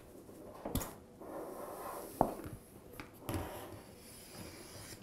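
Clear plastic protective tube of a safety light curtain being twisted loose and slid off the sensor: sliding and rubbing noise with a few sharp clicks, the plainest about two seconds in.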